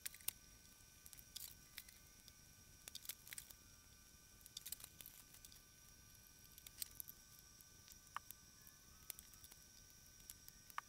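Faint, scattered small clicks and taps of a folding hex-key set and the metal fader panel of an Avid SC48 mixing console being handled while fader screws are worked, over a faint steady high tone.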